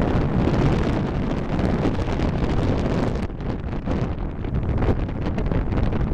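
Wind buffeting the microphone over the low rumble of an Airbus A320's jet engines, easing a little about halfway through.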